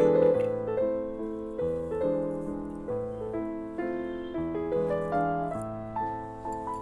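Background music: a gentle piano melody over sustained chords at a steady, unhurried pace.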